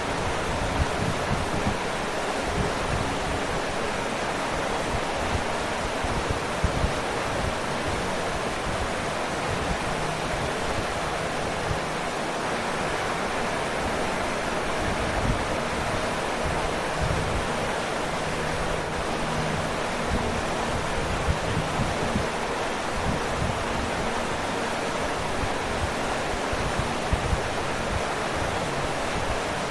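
Waterfall: water pouring and crashing steadily, a constant rushing roar with small irregular splashes underneath.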